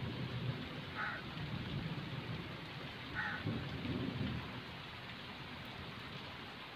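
Heavy rain falling steadily on the ground, trees and standing water, with a low rumble that swells about four seconds in. A short mid-pitched call sounds twice, about two seconds apart.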